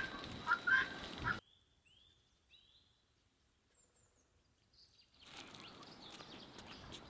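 Poultry calling in short, repeated calls, which stop abruptly about a second and a half in. Near silence follows with a few faint high bird chirps, and quiet outdoor ambience returns near the end.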